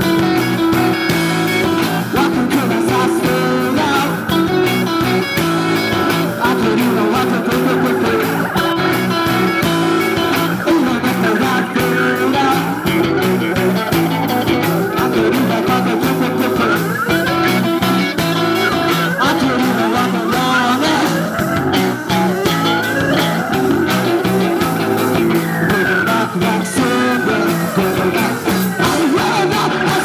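Live rock band playing loud: electric guitars over a drum kit, continuous throughout, with sliding notes in the second half.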